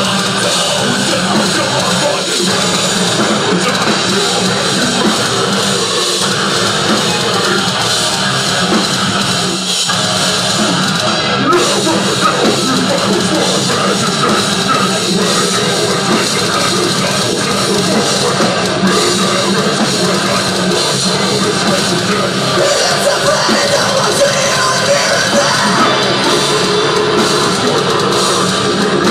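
A heavy rock band playing live and loud: electric guitars, bass guitar and a drum kit, with a vocalist singing into a microphone.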